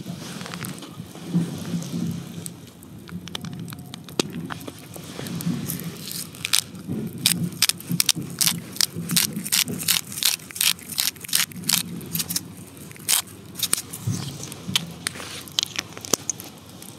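Something dry and crisp crumbled between the fingers over a metal mess tin: a run of sharp crackling clicks, several a second, lasting about eight seconds in the middle.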